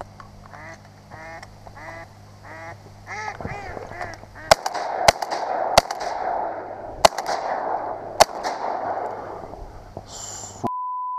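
Repeated runs of duck-like quacking, then a volley of about five shotgun shots over a few seconds as the hunters open fire on ducks on the water. A steady beep sounds briefly near the end.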